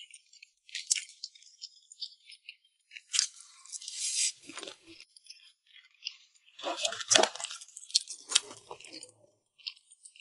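Close-miked chewing of a bitten taro egg tart: short bouts of soft, crackly mouth sounds from the pastry and filling, with quiet gaps between. The fullest bouts come about three to five seconds in and again around seven seconds in.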